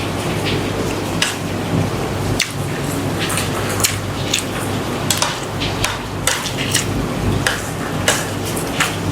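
Curry cooking in a pot on the stove: a steady sizzling hiss with a spoon or ladle clicking and scraping against the pot at irregular moments, over a steady low hum.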